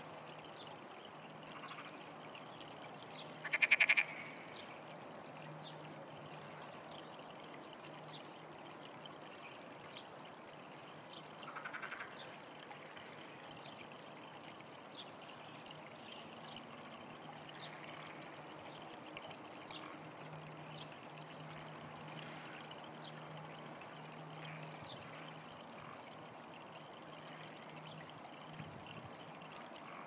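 Frog croaking: one loud call of rapid pulses about four seconds in, and a shorter, quieter call about twelve seconds in, over a steady background hiss.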